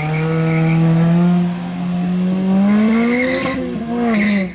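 A car engine run hard under load on an autocross course. Its note holds steady, climbs in pitch from about two seconds in, then falls near the end, with two short tire squeals as the car corners through the cones.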